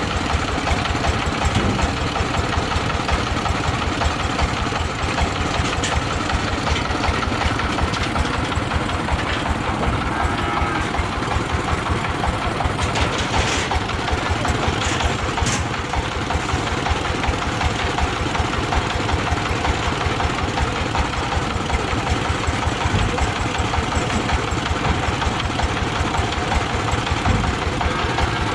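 Mobile rice threshing machine running steadily: its engine beats in a fast, even pulse under a constant rushing noise from the threshing works.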